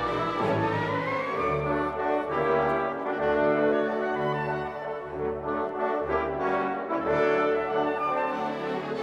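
Background orchestral music with brass, held notes changing about every second.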